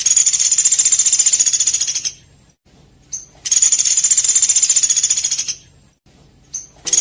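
A small songbird's high, very fast buzzing trill, given twice in phrases about two seconds long. Each phrase is opened by a short single note, and another opening note comes near the end.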